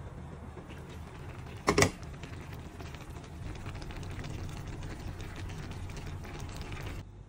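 Chopsuey vegetables simmering and crackling in a wok over a steady low hum, the crackle growing denser after about three seconds. One loud sharp clack comes about two seconds in, and the sound cuts off abruptly just before the end.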